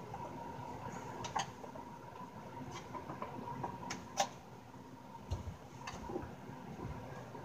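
Scattered light clicks and taps of a screwdriver working on a small guitar amplifier's case during disassembly, a few seconds apart, over a faint steady hum.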